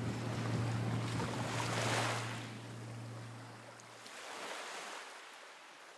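Waves washing on open bay water, swelling and easing, with a steady low hum underneath that stops about four seconds in; the sound then fades away.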